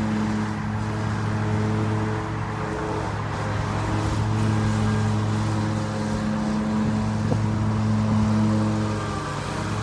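Steady low drone of an idling vehicle engine, holding one pitch throughout.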